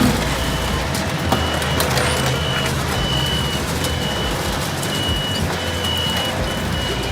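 A heavy machine's reversing alarm beeps steadily, about once a second, over the low rumble of its diesel engine, with a few sharp knocks.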